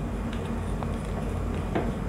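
Screwdriver turning the terminal screw of a push-button switch's contact block: a few faint scattered clicks and scrapes over a steady low hum.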